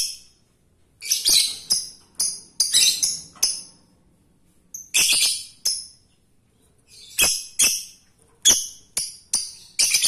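Male Fischer's lovebird calling for a female: sharp, shrill chirps in quick clusters of two to four, about fifteen calls with short pauses between the groups.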